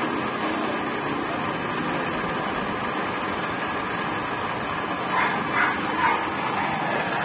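Homemade 12-volt battery-powered electric pump motor running steadily, pumping automatic transmission fluid into the transmission. Three short, louder sounds break in about five to six seconds in.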